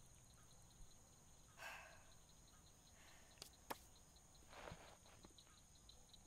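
Near silence: faint night ambience of insects chirping in a rapid, even pulse, with a couple of soft rustles and two sharp clicks about three and a half seconds in.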